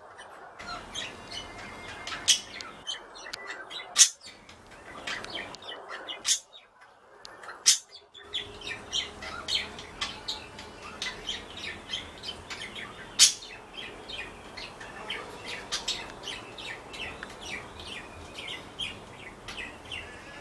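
Pet budgies chirping and chattering continuously, with many quick high chirps and a few sharp, louder calls.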